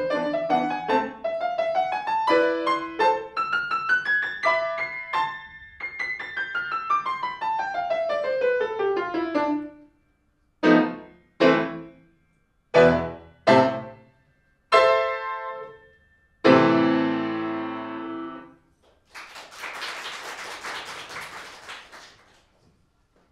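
Solo grand piano: a fast run of notes climbs up the keyboard and back down, followed by five separate struck chords and a final chord left to ring. A few seconds of audience applause follow the last chord.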